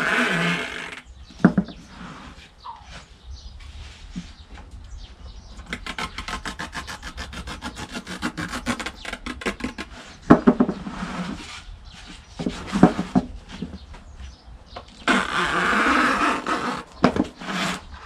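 A knife sawing and scraping through car-tyre rubber in quick rasping strokes, with a few sharper knocks and scrapes as the tyre is handled.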